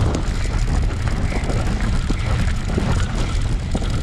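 Bicycle rolling fast over a dirt trail, with wind on the microphone: a steady rumbling noise with small scattered rattles.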